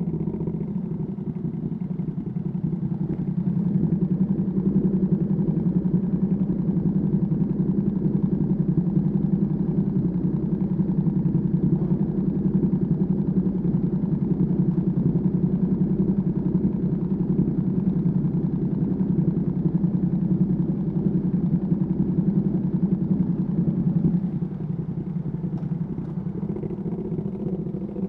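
Ducati Panigale V2S V-twin through a Termignoni exhaust, running steadily under light throttle while riding. It grows louder about four seconds in and eases off near the end.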